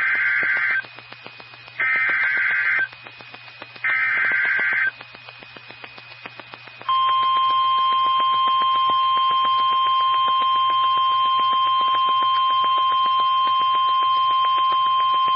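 NOAA Weather Radio Emergency Alert System signal heralding a flood warning: three buzzing SAME digital header bursts, each about a second long and a second apart, then about two seconds in, a steady 1050 Hz warning alarm tone starts at about seven seconds in.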